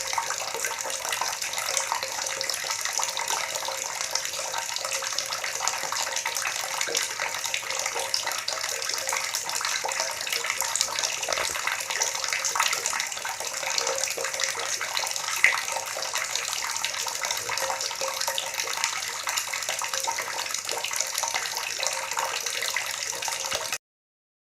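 Water gurgling steadily, a busy, bubbling flow that stops abruptly near the end.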